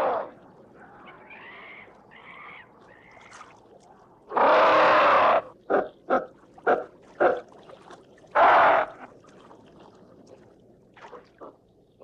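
Primate calls made into ape-man sound effects. A few soft wavering calls come first, then two loud harsh screams, about four and eight seconds in, each lasting about a second, with short sharp grunts or barks between and after them.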